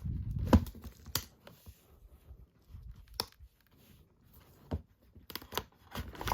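Hands handling disc cases and cardboard packaging: a brief rustle at the start, then scattered sharp clicks and taps.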